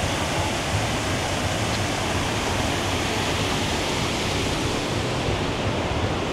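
Steady rushing water, an even unbroken wash of noise.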